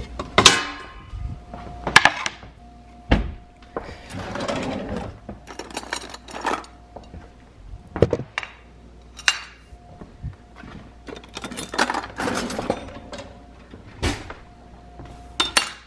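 Stainless steel pots and a colander clanking as they are handled in and out of a kitchen cabinet, with cabinet doors knocking and metal utensils set down: a series of separate knocks and clinks, with one ringing metallic clang about half a second in.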